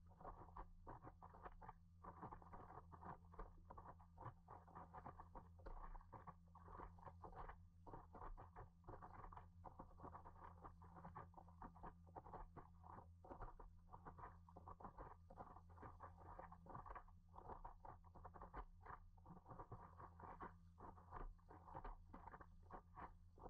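Faint, muffled patter of water splashing and lapping against the nose of a moving paddleboard, heard through a waterproof camera housing, over a steady low hum.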